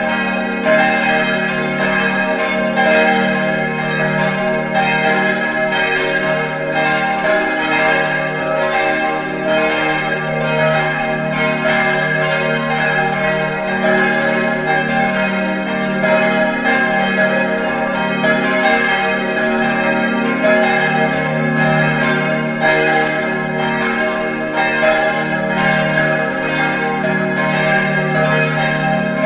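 Full peal of St. Gallus's four church bells, tuned E♭, G, B♭ and C, all ringing together in a continuous, overlapping stream of strikes whose tones hang on between blows. By their sound the uploader takes them for modern bells cast by Kurtz of Stuttgart.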